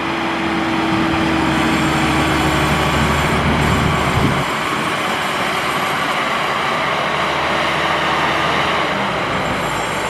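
Maxxi Bimo 102L rice combine harvester running under load as it works through a muddy paddy: a steady diesel engine and threshing-machinery noise. About four seconds in, the low engine hum drops away, leaving a broader, even machine noise.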